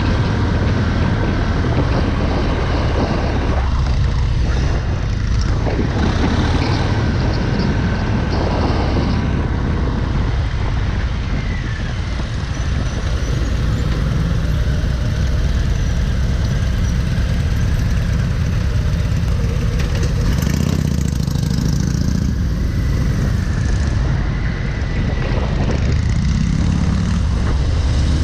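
Harley-Davidson V-twin motorcycle engine running under way, heard from the rider's position, with wind rushing over the microphone.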